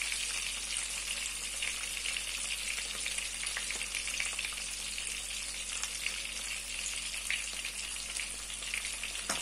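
Floured trout fillets frying in shallow oil in a non-stick frying pan: a steady sizzling hiss with fine crackles.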